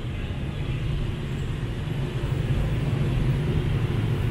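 A car engine running at idle: a steady low rumble.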